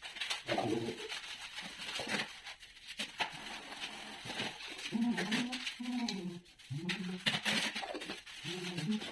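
A dove cooing, a run of low, bending coos starting about five seconds in. Before that there are light taps and scrapes as mosaic tile sheets are pressed into wet mortar on a countertop.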